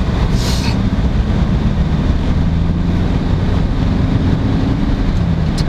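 Steady low drone of a Mercedes car heard from inside the cabin while driving: engine and road rumble, with a brief hiss about half a second in.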